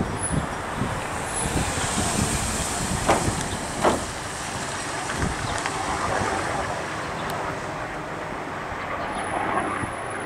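News helicopter with a two-bladed main rotor flying past. It makes a steady rumble with a rapid low rotor beat, and two sharper thumps come about three and four seconds in.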